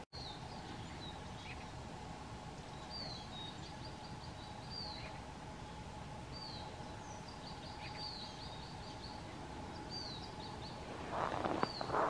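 Small songbirds calling: short, high, falling chirps, repeated in loose series over a faint steady hum. About a second before the end, a short burst of rustling noise.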